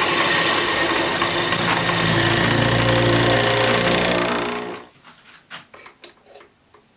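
Metal lathe running with a steady mechanical hum and whine. About four and a half seconds in it cuts off sharply, followed by a few light metallic clicks and knocks.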